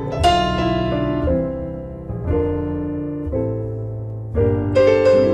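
Piano music: slow chords struck about once a second over a low bass, each dying away before the next.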